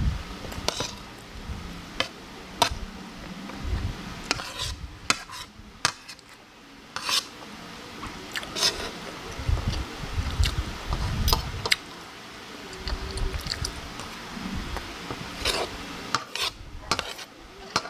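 Spoon and fork clinking and scraping against a plate in irregular sharp taps, with soft close-miked chewing thuds between them.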